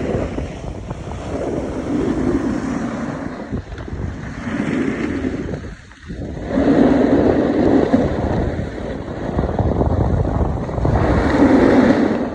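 Wind rushing over the microphone while riding downhill on a snowboard, mixed with the board's edges scraping over snow. The noise swells and fades with each turn and drops out briefly about six seconds in.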